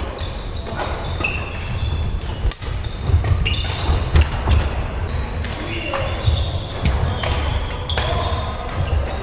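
Badminton rackets striking the shuttlecock again and again in a rally, sharp irregular cracks, with short high squeaks of court shoes on the hall floor and a steady low rumble of a large sports hall.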